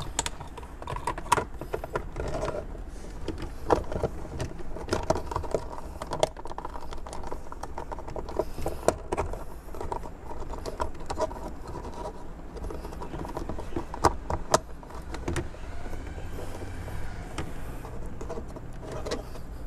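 Hands pushing a thin LED-strip wire into the gaps of a car's plastic center-console trim: scattered clicks, taps and rustles of wire against hard plastic, with a few sharper knocks.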